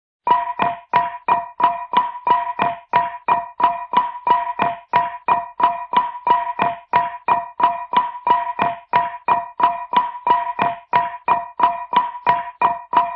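Hanna-Barbera cartoon sound effect: one pitched, struck tone repeated steadily about three times a second, each strike sharp with a short ring. It starts just after the beginning and stops at the end.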